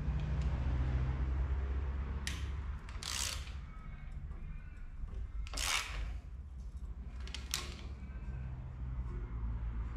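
A hand ratchet and socket on a V6 engine's crankshaft bolt clicks in four short bursts as the crank is turned over by hand. A steady low hum runs underneath.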